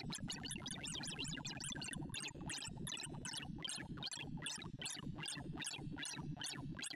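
Synthesized sorting-visualizer tones from ArrayV playing an iterative bitonic sort on 1,024 values: quick sweeping glides of pitch, about four a second, as the merge passes run through the array, over a lower sustained hum.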